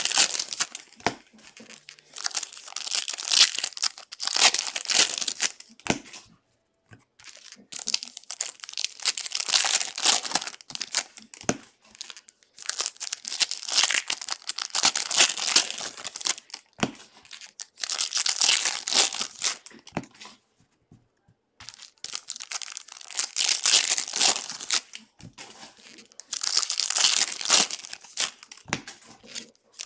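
Foil wrappers of 2021 Bowman baseball card packs being torn open and crinkled by hand. The crackling comes in bursts of a few seconds, with short pauses between them.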